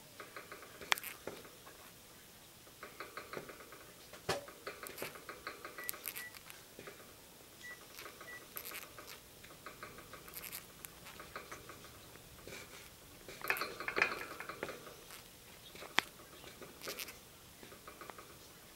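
Pet lovebirds making a strange, rapid clicking, rattling noise in repeated short bursts, with a few sharper clicks among them.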